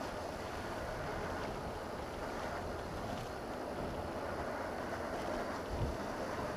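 Steady wind rush and road noise from a Honda CB500X motorcycle on the move, picked up by a helmet-mounted camera, with one brief low thump near the end.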